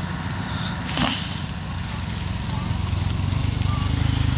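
Honda underbone motorcycle engine running low and steady, growing louder as the bike rides up close near the end. There is a brief sharp noise about a second in.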